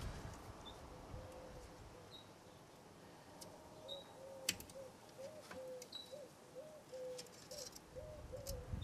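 Faint dove cooing, a run of short low notes at about two a second starting about two seconds in, with a few short high bird chirps and light scattered clicks as hands work on the engine part.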